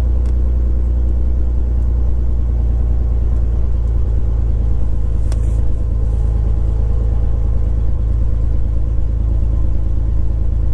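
Beechcraft G36 Bonanza's six-cylinder Continental IO-550 engine running steadily at low power, heard inside the cockpit as a deep, even drone.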